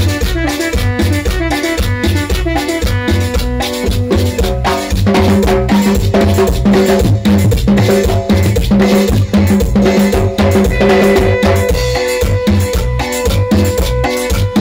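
Live band music without vocals: a Korg Pa600 keyboard played over a steady drum beat and percussion, with held keyboard chords coming in strongly about a third of the way through.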